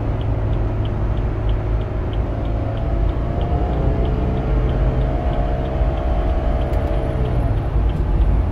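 BMW 328i's 2.0-litre turbocharged inline-four running hard at speed, heard inside the car over heavy road and tyre rumble. Its pitch rises a little about three seconds in, holds, then falls away about seven seconds in.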